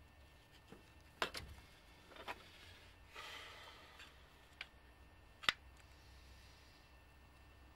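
Sharp metallic clicks and clinks from a rear drum brake shoe and its hardware being worked off the backing plate. There are about five separate clicks, the loudest about five and a half seconds in, and a short scraping rustle around three seconds in.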